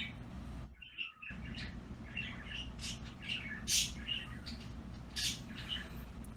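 Small birds chirping: many short, high calls in quick succession, over a low steady hum.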